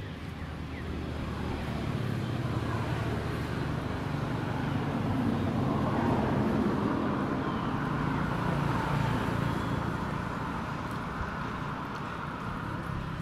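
A motor vehicle going past: engine and road noise swell to their loudest about six seconds in, then fade.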